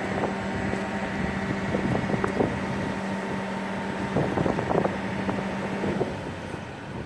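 Boat-yard travel lift's power unit running with a steady hum while the boat hangs in its slings, cutting out about six seconds in.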